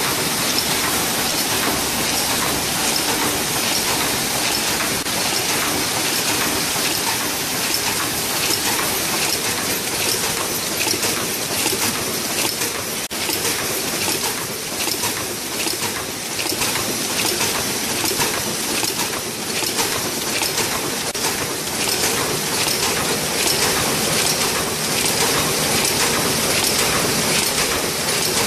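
Paper cup forming machine (AHD-50) running at production speed: a steady, dense mechanical clatter of rapid ticks and knocks.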